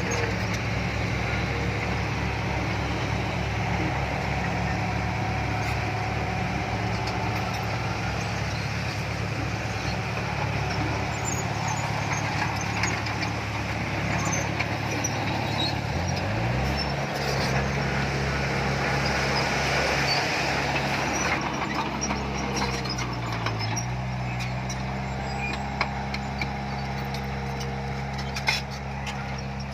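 Diesel engine of heavy earthmoving machinery running hard. It revs up about halfway through, dips briefly, revs up again, then drops back near the end.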